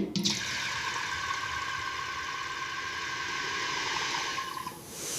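A steady rushing hiss that holds level for about four seconds, then fades near the end.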